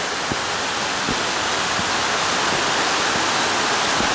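Mountain brook cascading over granite ledges in a small waterfall: a steady rush of falling water, getting a little louder over the few seconds.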